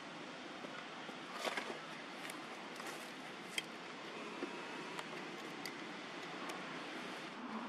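Steady outdoor background hiss with a few short, scattered clicks and ticks.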